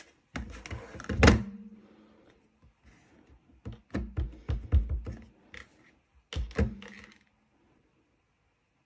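A plastic ink pad case is handled with knocks, one loud thunk about a second in. Then a clear acrylic stamp block is tapped several times onto the ink pad, a quick run of light knocks, with a couple more knocks a little later.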